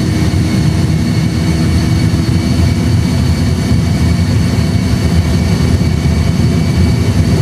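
Airbus A320 flight simulator's engine and runway sound during the take-off roll at take-off (TOGA) thrust: a steady, loud low rumble with a faint high whine over it.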